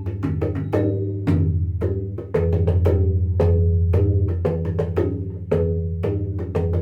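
Tabla bayan (bass drum) played in a rapid run of strokes, its deep bass tone ringing and sustaining beneath the sharp attacks.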